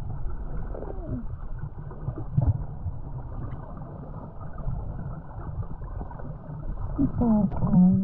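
Muffled, steady rumble of water and wind noise with the highs cut off, as from a camera in a waterproof housing. A short falling tone comes about a second in, and a muffled voice near the end.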